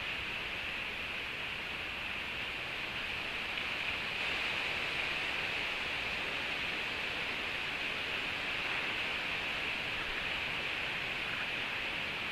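Steady, even hiss with no bird calls or other distinct sounds, strongest in a high-middle band and unchanging throughout.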